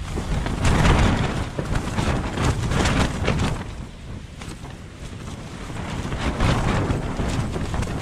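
Strong wind gusts buffeting an ultralight Tarptent ProTrail shelter, the tent fabric flapping and snapping, with wind rumbling on the microphone. The wind comes in two surges, one in the first half and another from about six seconds.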